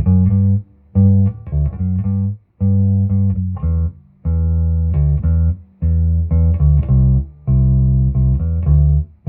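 Electric bass guitar played clean through a 1977 Peavey 400 bass amp head, with the fuzz and distortion turned all the way down: a simple riff of short, punchy low notes in repeated phrases with brief gaps between them.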